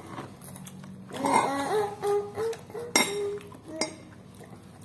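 Metal spoon clinking and scraping against a ceramic bowl while eating, with two sharp clinks about three seconds in, a little under a second apart.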